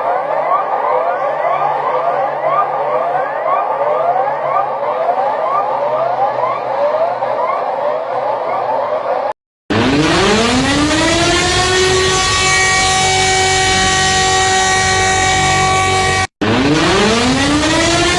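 Alarm and siren sounds. First a rapid run of short rising electronic chirps, about three a second, over a low hum. About nine seconds in it cuts to silence, then a siren winds up in pitch to a steady wail of several tones, cuts out briefly near the end and winds up again.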